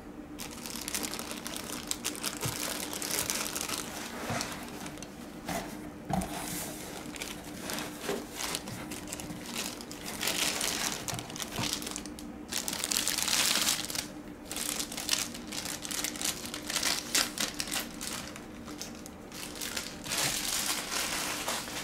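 Clear plastic bag wrapping crinkling and rustling in irregular bursts as a model airliner in it is worked out of a foam-lined cardboard box, loudest about ten and thirteen seconds in.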